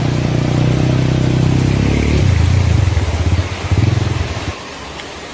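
An engine running loudly, its pitch dropping a little about two seconds in, then going uneven and fading near the end.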